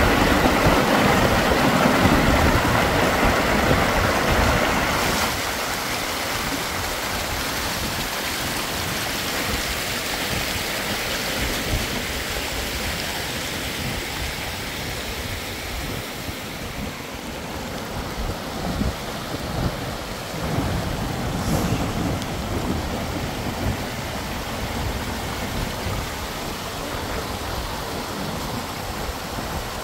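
Muddy storm floodwater rushing down an eroded hillside gully, with rain falling. The rushing noise is loudest for the first five seconds or so, then settles to a steady lower level.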